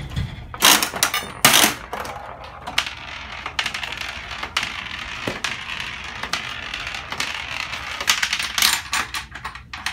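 Coin-operated spiral gumball machine: two loud metallic clunks as the quarter mechanism is turned, then a few seconds of steady rolling rattle as a gumball runs down the clear spiral track, and a clatter near the end as it drops into the delivery chute.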